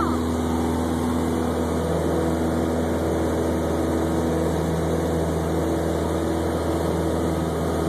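Light aircraft's engine and propeller running steadily in flight, heard from inside the cabin.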